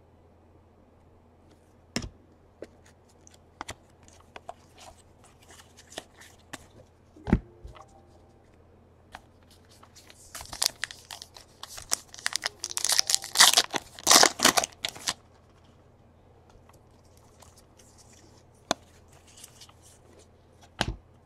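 A trading-card pack's wrapper being torn open and crinkled, a dense stretch of tearing and crackling about ten to fifteen seconds in. Scattered light clicks and a few sharp taps come from cards and packs being handled before and after.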